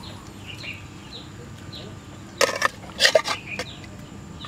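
Metal ladle scraping and knocking against a steel wok in two short bursts about halfway through, scooping out vegetables and sauce. Small birds chirp repeatedly in the background.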